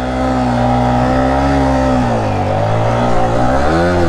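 Motorcycle engine running, its revs holding, sagging about halfway through and rising again near the end.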